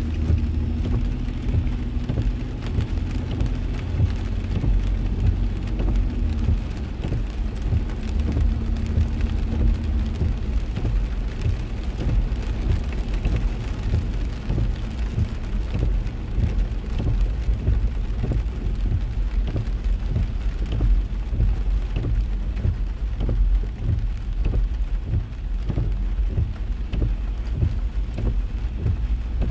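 Heavy rain pattering on a car's roof and windscreen, heard from inside the cabin over a constant low rumble from the car. A steady low hum runs through roughly the first third.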